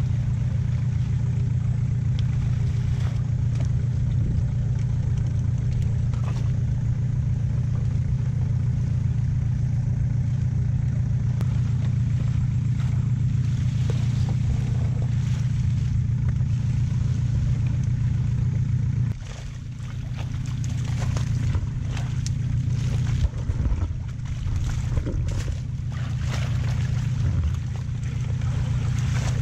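Small boat engine running steadily with a low hum. About two-thirds of the way in it quietens, and knocks and scrapes of the net and water hyacinth being handled on the boat come through.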